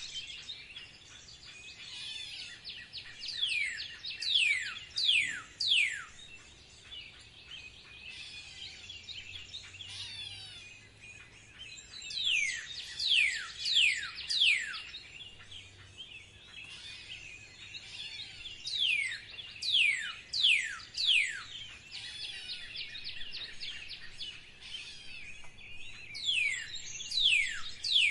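Birds calling: a bird gives bouts of four to six loud whistled notes that each slide sharply downward, about two notes a second. The bouts repeat every six to eight seconds over fainter, continuous chirping from other birds.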